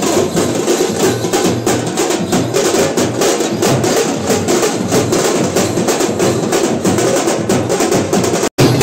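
Fast, dense stick drumming from a band of shoulder-slung drums, played without a break. The sound cuts out for an instant near the end.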